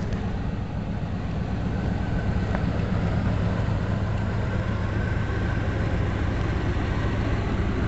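Class A motorhome engine running steadily, with an exhaust leak that is getting worse and worse.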